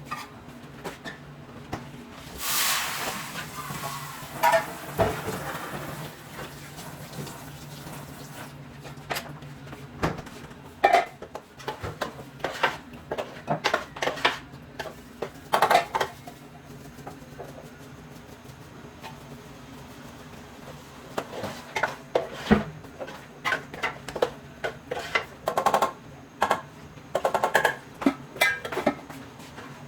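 Kitchen clatter: pans and utensils knocking and clinking in irregular bursts over a steady low hum.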